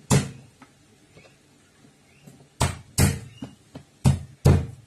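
Kitchen knife striking a plastic cutting board: a sharp knock at the start, then two quick pairs of heavier knocks in the second half.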